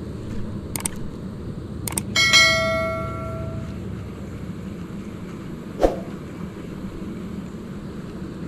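A single bright metallic ring, like a small bell or a struck piece of metal, about two seconds in, fading away over about a second and a half. It sits over a steady low rumble, with a couple of sharp clicks just before it and a soft knock later.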